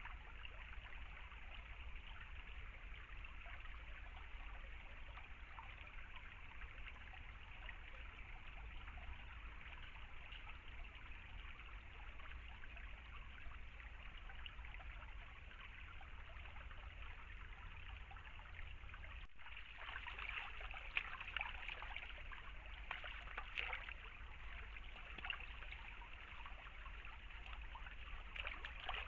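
Shallow stream trickling and babbling over stones, steady throughout. There is a brief break about two-thirds through, after which the trickling is a little louder and more splashy.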